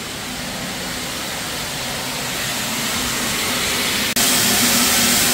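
Steam hissing out of an open line drain on a stationary steam engine's supply pipe as the engines are warmed through. The hiss grows steadily louder, then jumps abruptly louder about four seconds in.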